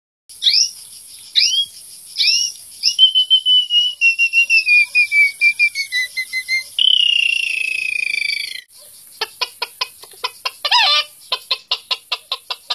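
A person imitating birds by mouth. First come four quick falling whistles, then a long run of rapid whistled pips that slide slowly down in pitch, then one long falling whistle. From about nine seconds in there is a string of hen-like clucks.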